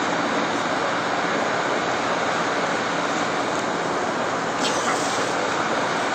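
Gas torch burner running with a steady roar as it plays its flame onto a burning carbon composite sample.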